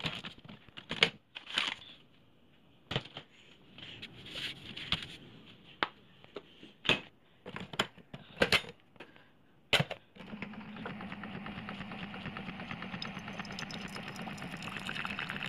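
Single-serve pod coffee maker being loaded and started: a series of clicks and clunks from handling the machine, then about ten seconds in its pump starts a steady buzzing hum as it brews coffee into a mug.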